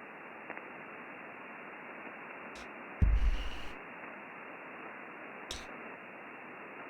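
Steady band-noise hiss from the Icom IC-7300 transceiver's receiver, cut off above the single-sideband filter's passband, with a few sharp clicks and one louder thump about three seconds in as the operator switches antennas to change bands.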